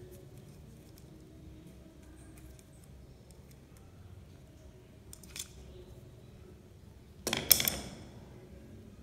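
Handling noise from a duplex receptacle and a stripped wire being worked in the hands: a small click about five seconds in, then a brief, louder rattle about seven seconds in.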